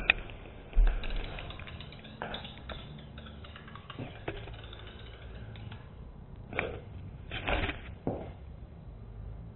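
Rustling and handling noise with scattered clicks, a low thump about a second in, and a few short noisy bursts near the end.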